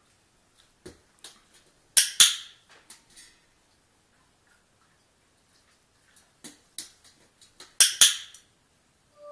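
A dog-training clicker clicked twice, each a sharp double click-clack, the second as the dog's front paws land on the upturned stainless steel bowl. Between them come softer taps of the dog's paws and nails on the bowl and the tile floor.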